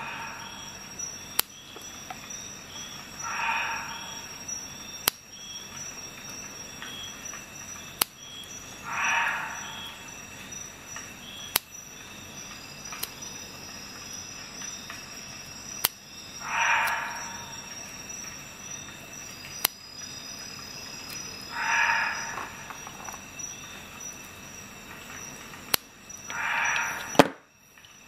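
Small spring-loaded multi-tool scissors (Leatherman Wave+) cutting through nylon paracord: six cuts, each lasting about a second and several seconds apart, with single sharp clicks of the blades in between.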